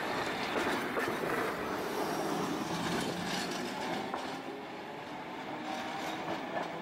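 Tosaden streetcar pulling away and running off along its street track, motor hum and wheels rolling on the rails with a few clicks, fading as it moves away.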